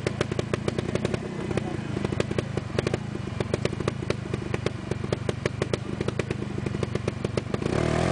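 Trials motorcycle's single-cylinder engine idling with a fast, uneven popping, then revving up just before the end as the bike pulls forward at the obstacle.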